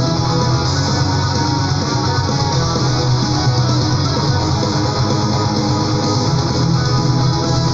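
Melodic metal recording: electric guitars and bass playing loud and dense without a break.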